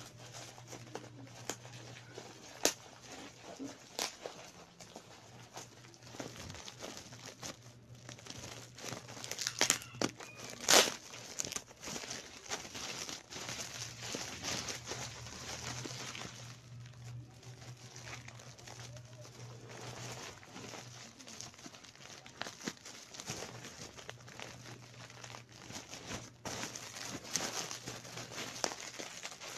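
Bubble-wrap packaging crinkling and crackling as it is handled and unwrapped by hand, with irregular sharp clicks, loudest about ten seconds in.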